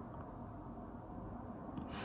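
Quiet room tone: a faint steady low background noise, with a short hiss near the end.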